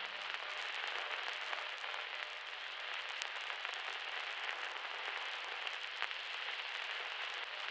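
The background noise layer of a lo-fi hip-hop beat playing on its own with no instruments: a steady hiss with scattered small clicks and crackles.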